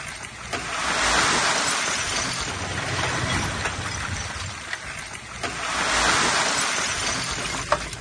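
Dump truck tipping its bed to unload earth: an engine runs low underneath a rushing noise that swells about a second in and again about six seconds in as the dirt slides out, with a sharp click near the end.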